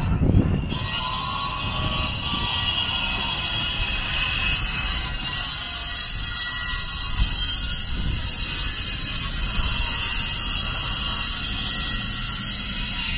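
Steady outdoor noise: a low, fluttering rumble under a constant hiss that comes in suddenly just under a second in.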